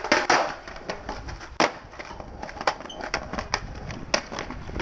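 Skateboard deck and wheels clacking and slapping on hard ground: a string of sharp, irregularly spaced knocks over a low rolling rumble, the loudest at the very start and about a second and a half in.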